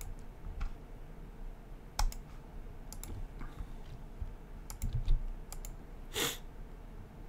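Scattered clicks of a computer mouse and keyboard, a dozen or so separate sharp clicks with a louder one about two seconds in. A short hiss about six seconds in.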